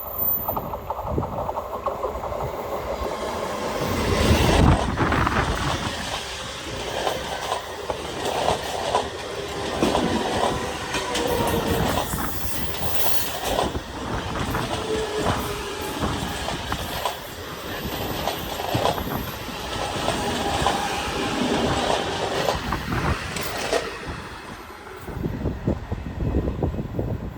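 Indian train passing close by on a sharp curve: steel wheels clattering over the rail joints, with flange squeal at times. It builds about four seconds in, runs for some twenty seconds, and fades near the end.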